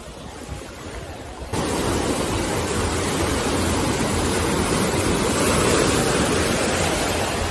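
Sea surf breaking and washing in the shallows, a steady rush of noise that gets suddenly louder about a second and a half in.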